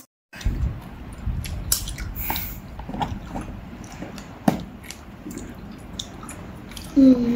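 People eating at a meal: chewing and biting, with scattered small clicks. A person's hummed "mm" starts near the end.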